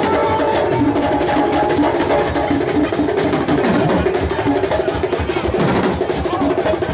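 Aloukou music played live: a busy, steady drum and percussion rhythm with melodic lines held over it.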